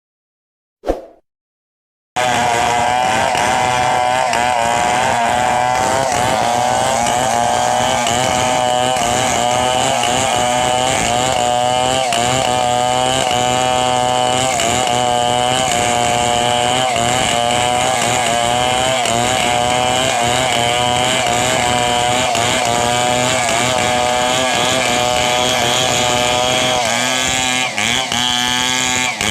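Stihl MS 070 two-stroke chainsaw running at high speed, its pitch wavering up and down as it works; it starts abruptly about two seconds in, after a single brief knock.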